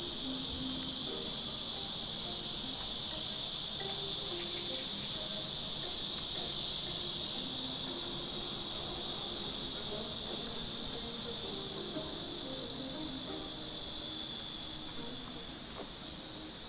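A steady, high-pitched chorus of insects shrilling, growing a little fainter about halfway through.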